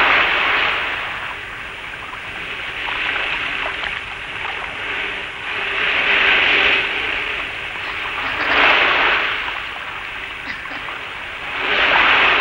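Sea surf: waves washing onto the shore, swelling and falling away about every three seconds.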